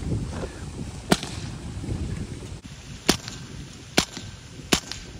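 Four sharp shots from a .22-calibre semi-automatic air rifle. The first comes about a second in, and the last three follow roughly a second apart, over a low rumble.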